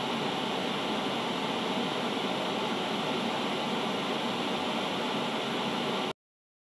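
Steady hiss of broadcast static, cutting off suddenly near the end: the sound of a transmission going off the air.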